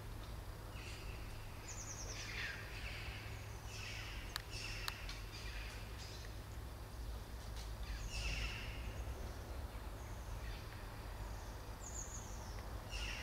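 Small birds chirping, short falling calls every second or two, over a steady low outdoor rumble, with a couple of faint clicks about four and a half seconds in.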